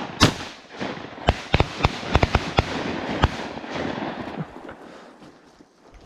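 A volley of shotgun fire from several hunters shooting at ducks: about ten shots in quick, partly overlapping succession over the first three seconds or so, then dying away.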